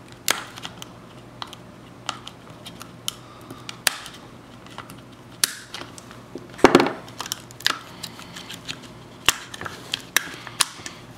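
Shears cutting and cracking thick, heat-deformed plastic from a melted plastic cup: scattered sharp clicks and snaps, with one louder, longer crunch about two-thirds of the way through.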